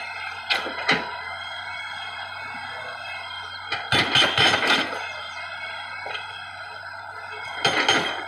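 Excavator-mounted hydraulic breaker hammering on large boulders in bursts of rapid blows: a short burst about half a second in, the loudest and longest about four seconds in, and another near the end. A steady machine hum runs underneath.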